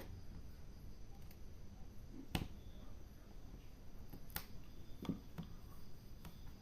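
A few separate sharp plastic clicks and taps, about four of them spread over several seconds, as a part on the underside of a plastic laptop case is pried off to get at hidden screws.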